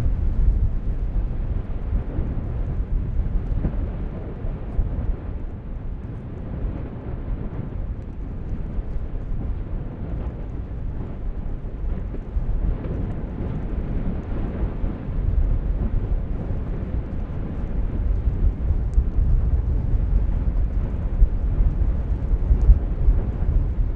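Deep, steady rumble of a volcanic vent erupting in a lava fountain, growing louder in the second half.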